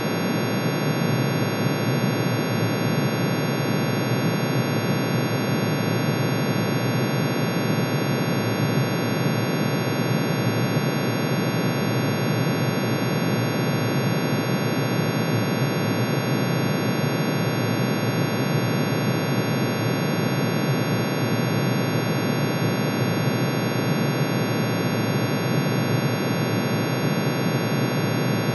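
Synthesized sound of iron's atomic emission spectrum: hundreds of sine waves, one for each spectral line, summed and pitch-shifted into hearing range. The result is a steady, unchanging dense drone, a noisy rumble below with a cluster of fixed tones above.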